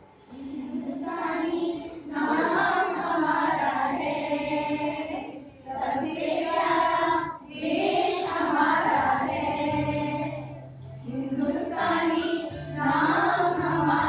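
A group of women and children singing a song together in unison, in short phrases with brief breaks between them.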